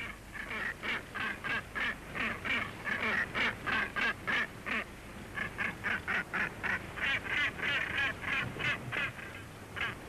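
Northern gannets calling: a fast run of short, repeated calls, about three a second, with a brief break about halfway through before the calling picks up again.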